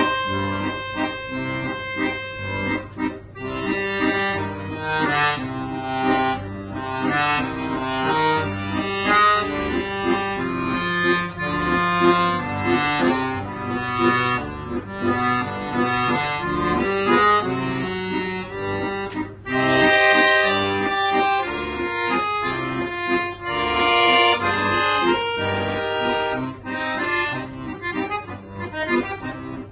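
Solo accordion playing continuously, with full chords and quickly changing melody notes over sustained bass notes.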